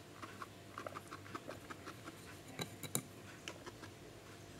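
A small furry pet shuffling through hay and nosing right at the camera, making scattered light ticks and rustles, with two sharper clicks about three seconds in.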